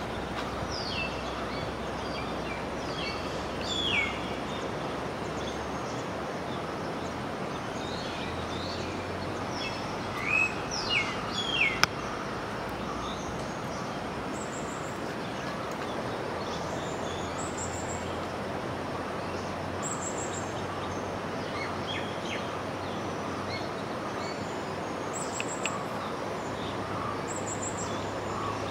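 Birds chirping in short falling notes, loudest about ten to twelve seconds in, over a steady rushing noise.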